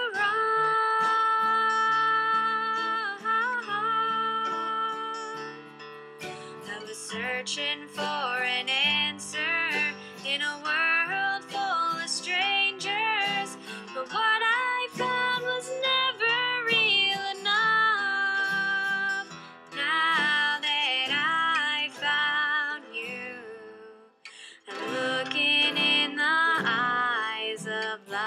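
Bluegrass band music: a steel-string acoustic guitar picked and strummed under other plucked strings and held, wavering melody notes. The music drops out briefly near the end, then resumes.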